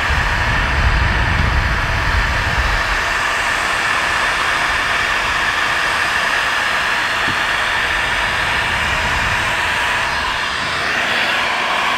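Porter-Cable electric heat gun running steadily, blowing hot air onto heat-shrink butt connectors on wire splices to shrink and seal them. There is a low rumble during the first few seconds.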